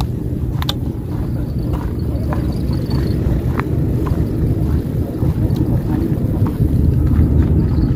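Wind buffeting the microphone: a heavy, unsteady low rumble, with a few faint clicks scattered through it.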